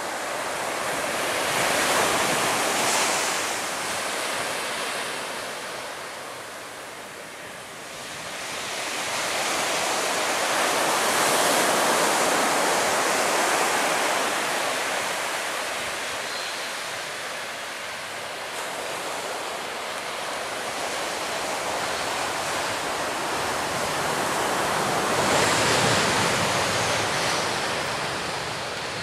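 A steady rushing roar that swells and fades in slow waves, loudest about ten to fourteen seconds in. It is surf and wind noise on the microphone, mixed with the jet noise of an Airbus A320-family airliner passing on its landing.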